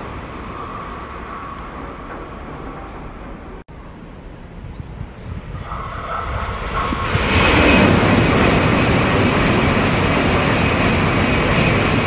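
N700-series Tokaido Shinkansen train approaching and passing through the station at speed without stopping. The rushing wind and rolling noise build from about six seconds in, turn loud a second later and stay loud, with a high, steady whine. Before that comes a fainter rumble that breaks off briefly about four seconds in.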